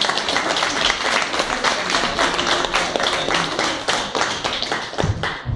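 Audience applauding, many hands clapping densely, dying away near the end as music starts.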